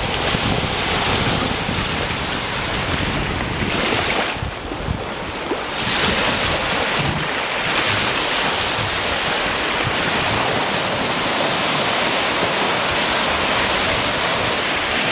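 Mediterranean sea waves breaking and washing on the beach in a continuous rush of surf, swelling about six seconds in, with wind buffeting the microphone.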